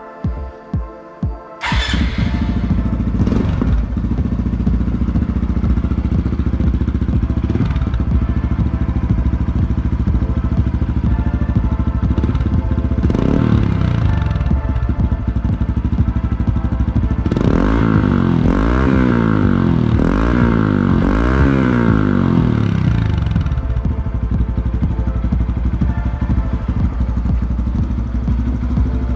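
Honda CT125 Hunter Cub's single-cylinder four-stroke engine breathing through an aftermarket Yoshimura Cyclone exhaust. It starts about two seconds in and idles, with a few light throttle blips, then several quick revs in a row between about 17 and 23 seconds before dropping back to idle.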